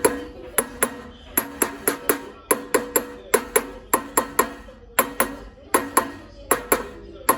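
A hammer tapping the tapered hub of a two-piece taper-lock V-pulley onto an engine's output shaft: about twenty sharp metal-on-metal strikes, mostly in quick pairs and threes, each ringing briefly.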